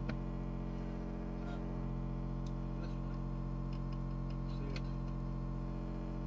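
Steady electrical hum from a Panasonic RX-5250 boombox's speaker, with a few faint clicks.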